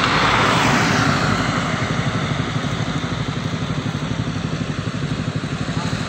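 Motor vehicle engine running steadily while driving, its low firing pulses even throughout, with road and wind noise. The hiss swells briefly in the first second or so.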